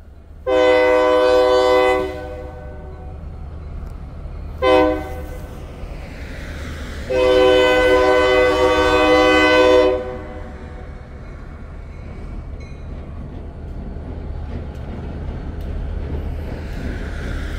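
Diesel locomotive air horn blowing a long blast, a short one, then a longer one, the closing part of the long-long-short-long grade-crossing signal, over a steady low rumble.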